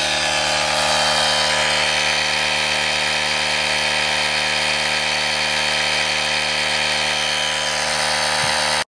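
Auxito AJ01 jump starter's built-in portable air compressor running steadily while it inflates a car tyre: a constant motor-and-pump drone with many even overtones. It drops out for an instant near the end.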